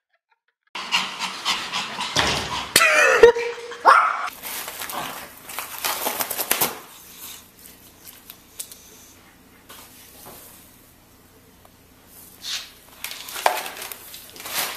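A dog panting and snuffling. It is louder and busier in the first six seconds, with a short falling cry about three seconds in, and quieter after that.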